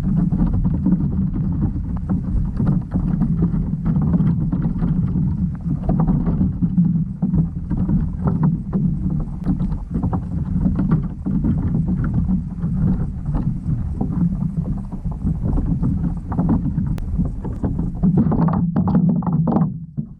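Underwater noise picked up by a GoPro submerged inside a fish trap: a steady low rumble full of irregular clicks and crackles.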